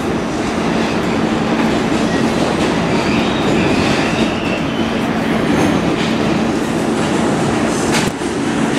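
On-board running noise of an R-46 subway car at speed in a tunnel: a steady rumble of wheels on rails over a steady low hum. A sharp click comes near the end.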